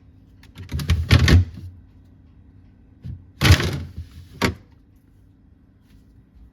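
Two bursts of clattering knocks as hard objects are handled and set down, about a second in and again about three and a half seconds in, the second ending in one sharp knock.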